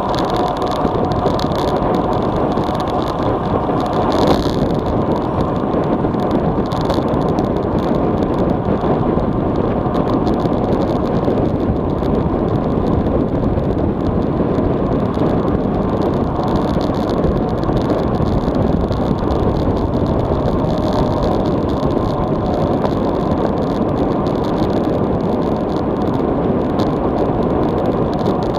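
Steady, loud wind rushing over an action camera's microphone on a road bike coasting downhill at about 40–55 km/h.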